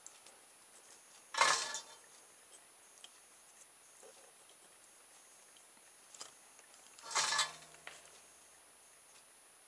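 Two short bursts of clatter from small objects handled on a workbench, about a second and a half in and again about seven seconds in, with a few faint ticks between.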